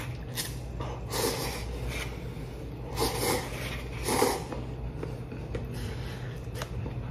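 Noodles being slurped from a cup of instant tonkotsu-shoyu ramen: four short slurps, about a second apart at first, with a longer pause after the second.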